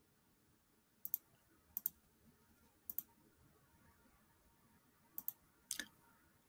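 Computer mouse button clicked five times at uneven intervals, each click a quick double tick of press and release.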